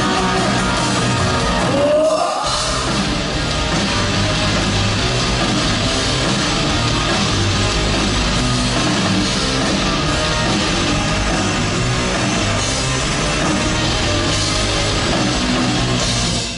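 Rock band playing live and loud: distorted electric guitar, bass guitar and drums, heard from within the crowd in a large hall. The bass and drums drop out briefly about two seconds in, then come back.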